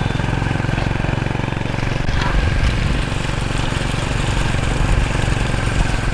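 An engine running steadily at an even pace, with a short knock about two seconds in and indistinct voices in the background.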